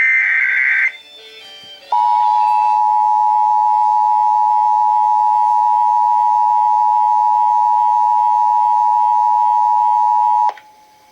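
The last burst of an Emergency Alert System SAME header: digital data tones warbling between about 1.5 and 2 kHz, lasting about a second. About a second later comes the EAS two-tone attention signal (853 and 960 Hz together), held steady for about eight and a half seconds before it cuts off, announcing the test message.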